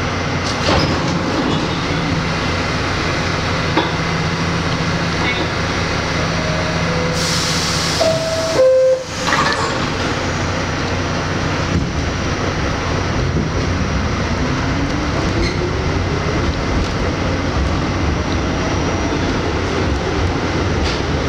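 Inside an R68 subway car at a station platform, its equipment humming. Roughly a third of the way in come a short hiss of air and a two-tone door chime. Then the traction motors whine, rising in pitch as the train pulls out, with wheel noise on the rails.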